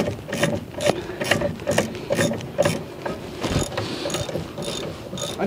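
Ratchet wrench with a hex (Allen) bit socket clicking as it is swung back and forth, turning a rear brake caliper bolt. The clicks come in an even rhythm of about two a second.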